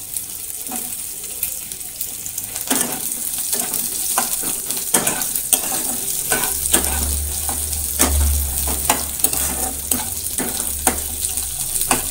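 Sliced onions sizzling in hot oil in a wok, stirred with a metal spatula that scrapes and taps against the pan many times from about three seconds in.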